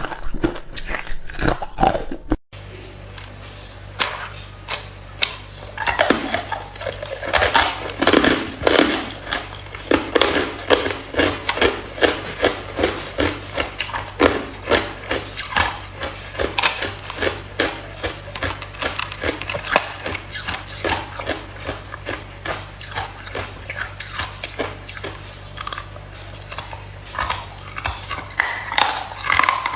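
Hard ice being bitten and chewed close to the microphone: a long run of sharp, crackling crunches, about one to two a second, with a brief break about two seconds in.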